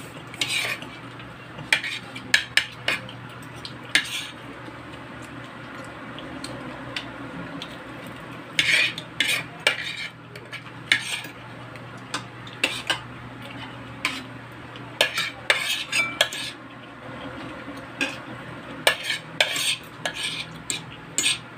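Spoon and fork clinking and scraping on a plate while eating: irregular sharp clicks and short scrapes, with clusters of scraping about nine seconds in, around fifteen to sixteen seconds, and again near the end.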